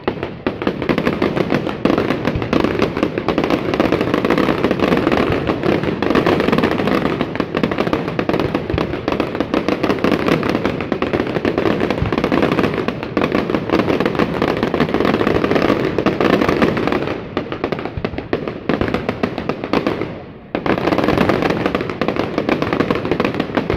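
Fireworks display: a dense, continuous barrage of bangs and crackling, with a brief lull about twenty seconds in before it starts again.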